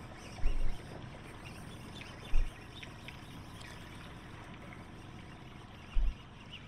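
Wind buffeting the microphone in three short low thumps, over a steady wash of lake water around a small boat.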